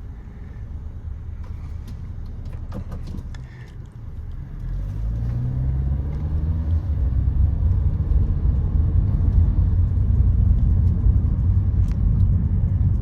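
A few clicks and knocks, then about four and a half seconds in the Kia Soul's 2.0-litre four-cylinder engine starts. Its pitch rises and then eases into a steady low running. It has a newly fitted ignition coil on one cylinder and is being run to check for an intermittent misfire.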